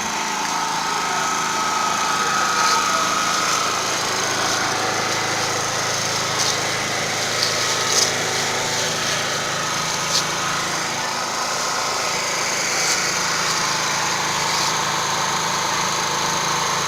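Small petrol generator running steadily on LPG (cooking gas) through a dual-fuel gas carburetor, with its petrol tank disconnected. A few sharp clicks sound over the steady engine hum.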